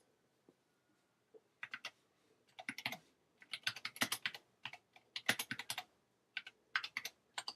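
Typing on a computer keyboard: several quick runs of keystrokes separated by short pauses.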